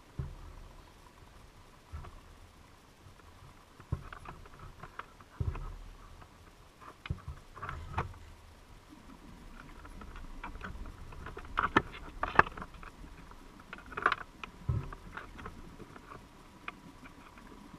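Underwater sound heard through a GoPro's waterproof housing: irregular sharp clicks and dull knocks, thickest about two-thirds of the way through, over a faint steady tone.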